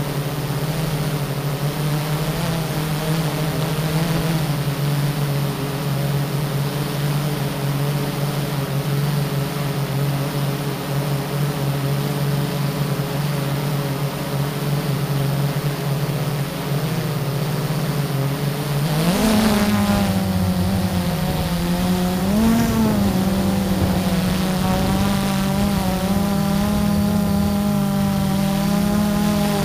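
Blade 350 QX quadcopter's electric motors and propellers droning steadily, heard from the camera on board. About two-thirds of the way through the pitch jumps up and wavers twice as the motors speed up, then holds at the higher pitch.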